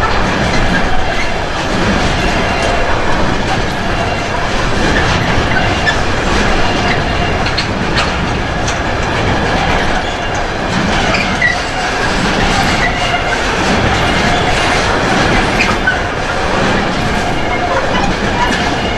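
Freight train of container flat wagons rolling past close by: a steady, loud rumble of wheels on rail with clatter from the passing bogies.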